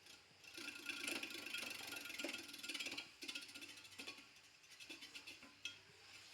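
A burst of rapid mechanical clicking and rattling, dense for about two and a half seconds, then thinning to scattered clicks.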